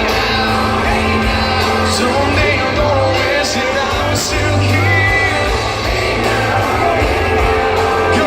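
Band music playing before the vocals come in, with voices shouting over it.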